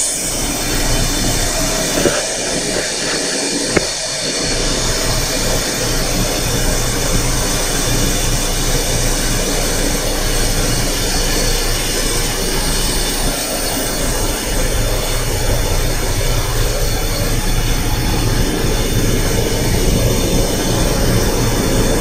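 High-pressure steam rushing steadily through the plant's valve and header piping during a blowdown of the steam header, as the valve is stepped by hand, with a couple of brief knocks in the first few seconds.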